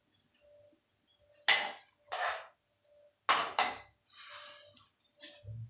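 A steel spoon and a steel plate clinking and knocking against a metal cooking pot as dry wheat vermicelli is stirred into the water and more is tipped in from the plate: a few sharp metallic clinks with softer scraping between them.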